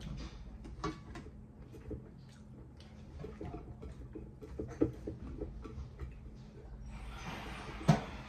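Eating at a table: scattered small clicks and taps of fingers mixing rice on a plate, and chewing. Near the end comes about a second of rustling, then one sharp knock.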